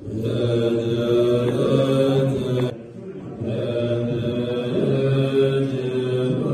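Tibetan Buddhist monks chanting a mantra in low male voices, in long sustained phrases with a short pause for breath about three seconds in.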